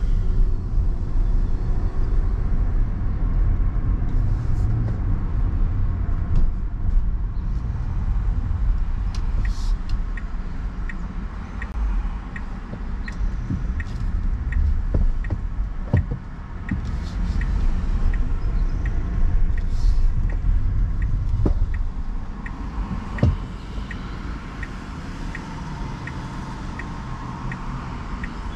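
Car driving, heard from inside: a steady low rumble of road and engine noise. From about ten seconds in, a turn-signal indicator ticks steadily, about three ticks every two seconds. The rumble drops in the last few seconds as the car slows almost to a stop.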